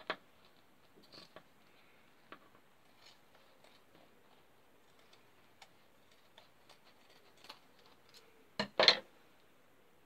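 Large scissors snipping through faux fur, giving scattered short, soft cuts and clicks, then a louder double knock on the wooden table near the end.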